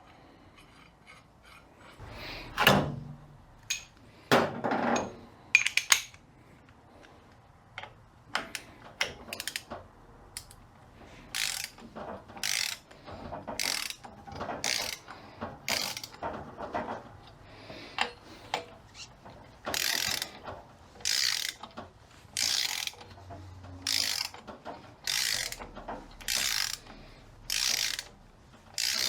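A ratchet clicking through repeated strokes, about one a second in the second half, with a few scattered knocks and clinks before that. It is drawing on a hook and eye bolts threaded into a 42RE transmission's pump to pull the pump out.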